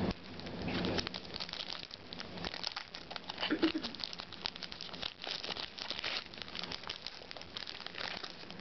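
Foil wrapper of a trading-card pack crinkling as it is handled and torn open by hand: a dense, irregular run of small crackles.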